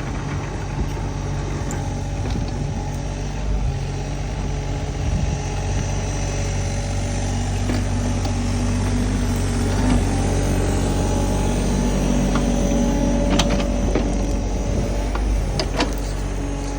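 Excavator diesel engine running steadily under load while digging a ditch, with a higher whine that comes in about six seconds in, and a few sharp knocks near the end.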